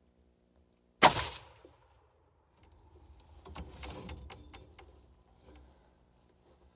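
A single deer rifle shot about a second in, sharp with a short fading tail, that drops a whitetail buck. Softer rustling and clicks follow for a few seconds.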